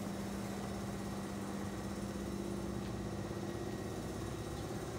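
Steady mechanical hum of a running motor or engine: a constant drone that holds level, with no starts, stops or changes in pitch.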